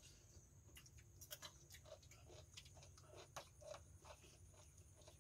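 Near silence with faint, scattered clicks and taps of people eating: fingers and spoons at bowls, and chewing.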